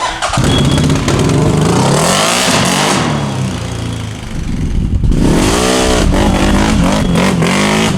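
A CFMOTO engine running through an RJWC aftermarket exhaust, revving hard as it accelerates. It eases off about three and a half seconds in, then revs up again in a rising sweep about five seconds in.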